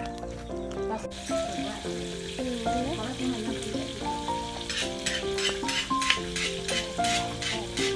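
Pot of chicken and banana-stem curry bubbling and sizzling as it simmers, with a run of crackling pops from about five seconds in. Background music with a stepping melody plays over it.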